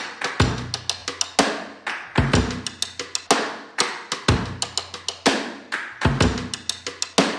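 Background music: a steady drum-kit beat with a low kick about once a second and lighter snare and percussion hits between.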